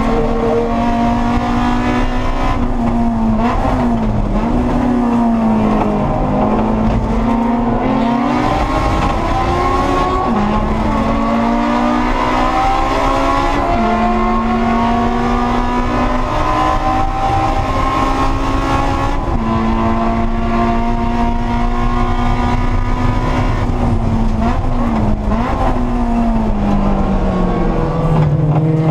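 Honda S2000 CR race car's four-cylinder engine, heard from inside the cabin at racing speed. It revs up through the gears, climbing in pitch and falling back at each shift. Near the end it drops to lower revs under braking.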